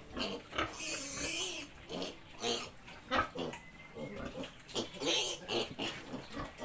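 Piglet, about 20 days old, squealing and grunting in short repeated calls while held up by its hind legs for a vitamin injection, with shriller squeals about a second in and again about five seconds in.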